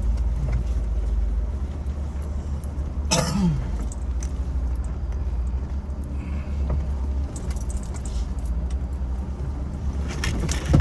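Jeep crawling slowly over trail rocks: a steady low engine rumble with loose rattling and clinking, a sharp knock about three seconds in, and a burst of clatter near the end.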